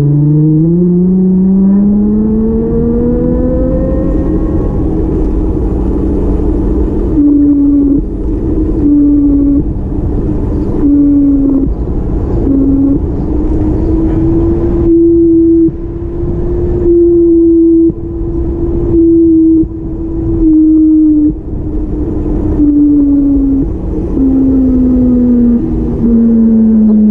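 A vehicle engine whose pitch climbs smoothly over the first four seconds, holds fairly level with small rises and dips, and sinks again near the end. A heavy low rumble runs underneath, with irregular sudden surges of rushing noise from about a quarter of the way in.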